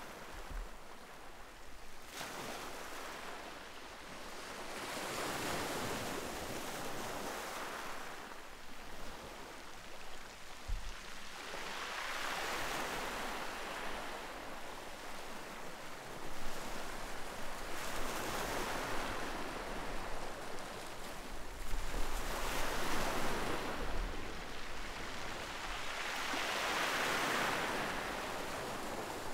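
Ocean surf breaking and washing up the beach, the rush of each wave swelling and falling away every few seconds.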